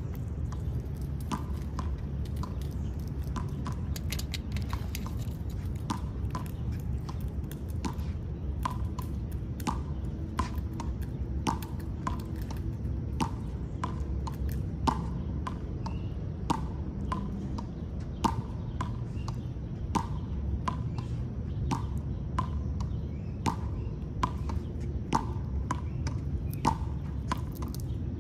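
Sharp clicks, each with a brief ringing note, repeating irregularly about twice a second, over a steady low rumble.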